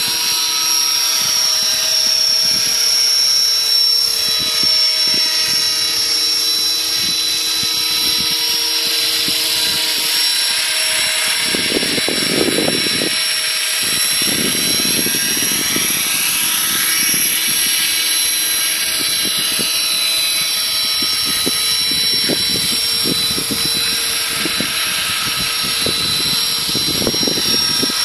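Radio-controlled scale model Hughes 500 helicopter flying, its motor and rotors giving a steady high-pitched whine whose pitch sweeps up and down as it passes. Wind gusts on the microphone add a low rumble around twelve seconds in and near the end.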